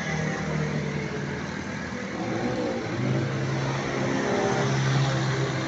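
A vehicle's engine running amid road noise; about three seconds in, an engine note grows stronger and louder as a vehicle accelerates.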